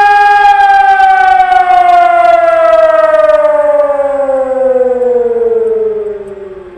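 Telegrafia PAVIAN 2400 electronic siren sounding a loud steady tone that, about half a second in, slowly falls in pitch and fades out near the end: the wind-down at the close of the siren signal.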